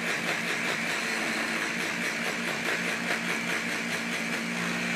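Small blender running steadily, mincing onion finely, with a steady motor hum; it stops right at the end.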